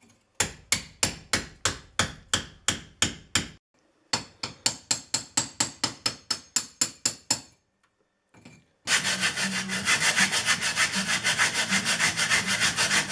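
Hammer and chisel chipping at brick edges: two runs of sharp, evenly paced blows, about four or five a second. About nine seconds in, a louder, continuous rasping with quick strokes takes over.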